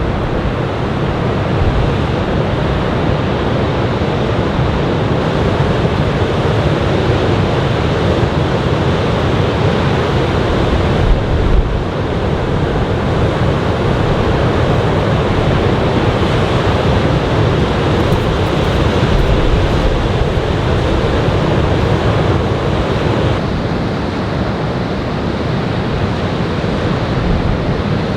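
Ocean surf from a typhoon swell breaking and washing onto the beach in a steady roar of waves, with wind buffeting the microphone in brief low thumps, the strongest about 11 seconds in.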